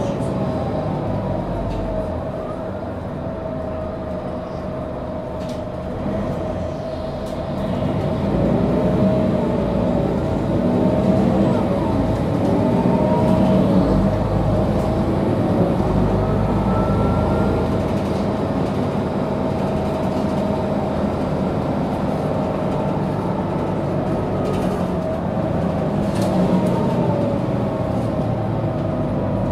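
Mercedes-Benz O530G Citaro articulated bus heard from inside the passenger cabin while under way: engine and drivetrain running with a steady rumble and a whine. Faint tones rise and fall in pitch, and the noise grows louder from about eight seconds in, then eases a little.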